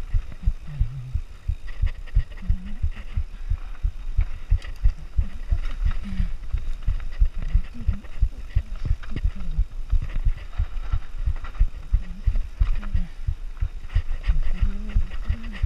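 Downhill mountain bike clattering over a rough, bumpy trail at speed: a rapid, irregular stream of low thuds and knocks from the wheels, suspension and chain hitting the terrain, over a steady low rumble.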